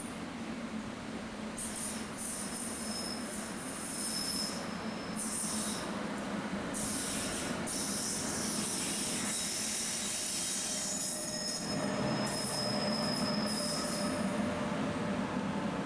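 A train running with repeated high-pitched wheel squeal on the rails, coming in several bursts over a steady low rumble.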